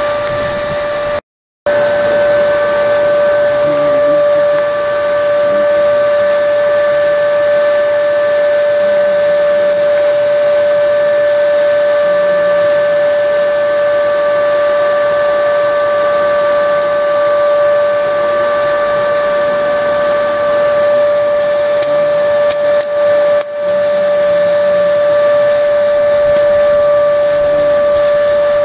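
Air blower feeding a coal forge: a steady whine over a rushing hiss of air and fire, cutting out briefly about a second in.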